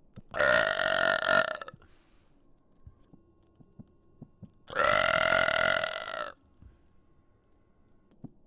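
A man burping loudly twice, each a long drawn-out belch of about a second and a half, the second coming about four seconds after the first.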